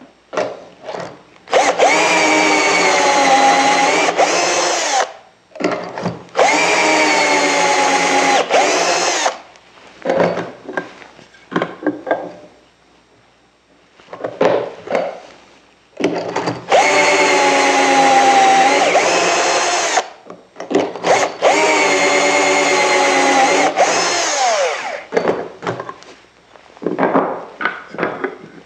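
Cordless drill boring pocket holes through pine with a stepped bit in a Kreg pocket-hole jig: four runs of a few seconds each, the motor pitch sagging as the bit cuts into the wood. Between runs there are short knocks and clicks from clamping the jig and handling the wood.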